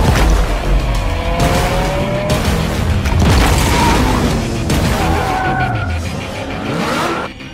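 Background music with a heavy pounding beat, mixed with a Lamborghini Aventador's V12 engine revving and tyres skidding. The sound drops away briefly near the end.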